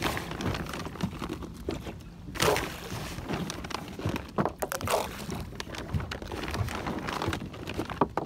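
A baiting spoon being scooped and flung from a boat, spoonfuls of bait splashing onto the water. There are several sudden splashes and clatters, the loudest about two and a half seconds in.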